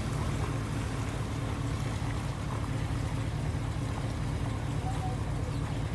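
Floodwater sloshing and washing over a flooded paved yard, over a steady low rumble.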